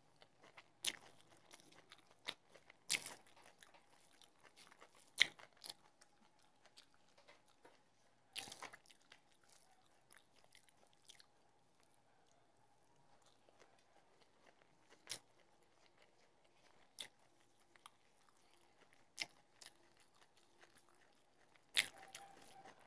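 Close-up eating sounds of a person eating rice and fish curry by hand: faint chewing with about ten short, scattered smacks and clicks from the mouth and fingers.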